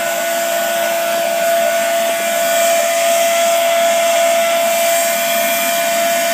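A forge's air blower runs steadily, blasting air into the fire. It makes a constant rushing noise with an even whine.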